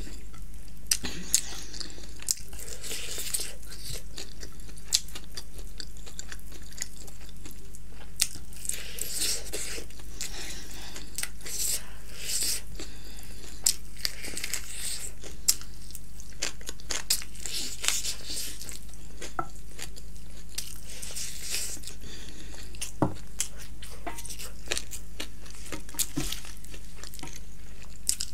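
Close-miked biting and chewing of hot and spicy fried chicken wings: many short, wet crunching and smacking mouth sounds with sharp clicks, over a steady low electrical hum.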